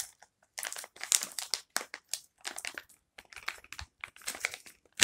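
Clear plastic bag crinkling in short, irregular bursts as hands pull it open.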